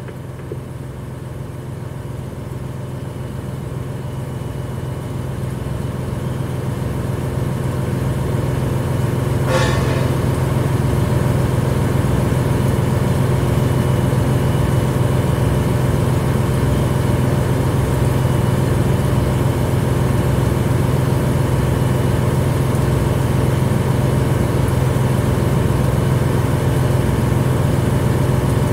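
Fire engine's engine running steadily at pumping speed to drive its pump. It builds up over the first ten seconds and then holds level, with one brief sharp sound about nine and a half seconds in.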